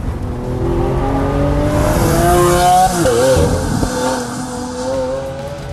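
Lamborghini Aventador Roadster's 700 hp V12 accelerating hard, its note climbing for about three seconds. It breaks briefly at a gear change, then pulls on more evenly and eases off near the end.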